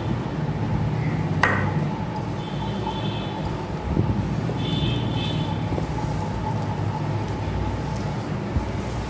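Steady low background rumble with a faint steady hum, while hands knead palm pulp and rice flour in a steel bowl. A sharp click comes about a second and a half in, and two short high-pitched tones sound around three and five seconds.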